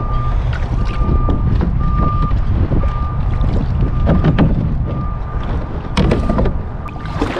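Wind buffeting the microphone, with a high electronic beep repeating about once a second. A few sharp knocks of the paddle against the sea kayak's deck come a little past the middle and again about six seconds in.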